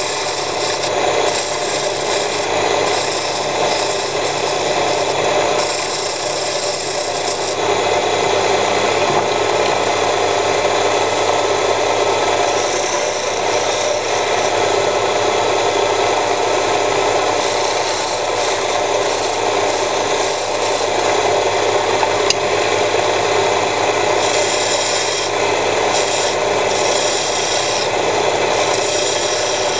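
Small homemade wood lathe running with a steady electric-motor hum, while a narrow hand-held tool scrapes and cuts the spinning wood. Higher hissing scraping comes and goes as the tool is pressed in and eased off.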